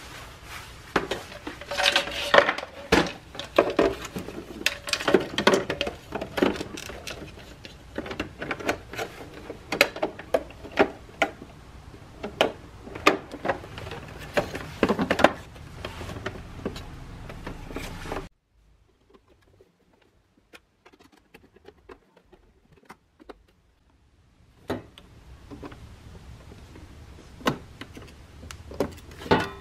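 Plastic casing and parts of a Keurig coffee maker being handled and fitted by hand, giving irregular clicks, knocks and rattles. The sound drops suddenly to near silence for about six seconds past the middle, then sparser clicks resume.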